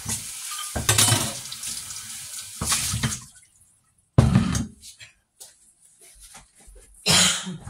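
Water from a kitchen tap splashing into a sink in several bursts with short quiet gaps between.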